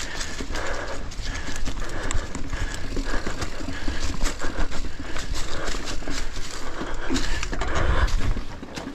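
Mountain bike riding over rough, leaf-covered singletrack: a constant clatter of rapid knocks and rattles as the tyres and bike hit roots and rocks, over a steady low wind rumble on the mounted microphone.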